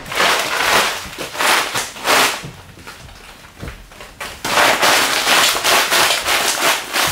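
The folded plastic sheeting of a car capsule storage bubble being unrolled across the floor, crackling and rustling in bursts, with a quieter lull about halfway through.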